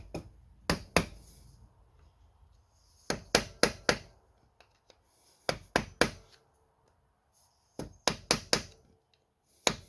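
Hammer strikes on metal in quick groups of two to four sharp taps, about every two seconds. The strikes are knocking back the tab of the lock washer on the Banshee's 32 mm front sprocket nut so the nut can come off.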